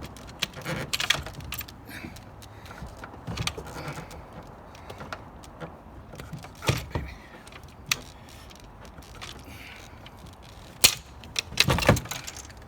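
Truck battery being worked down into its tray in the engine bay: scattered knocks, scrapes and rattles, with the loudest clunks near the end as it seats.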